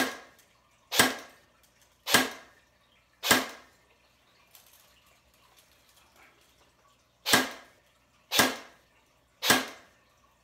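Snow Wolf airsoft Barrett .50 cal electric rifle firing single shots on semi-auto: sharp shots about a second apart, four, then a pause of about four seconds, then three more.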